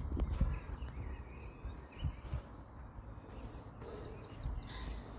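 Outdoor lakeside background noise: a low steady rumble with a few soft knocks, and faint bird chirps.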